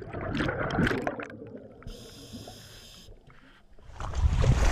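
Shallow water splashing and gurgling, with a brief high shimmering sound about two seconds in. Near the end a loud low rumble of wind on the microphone sets in.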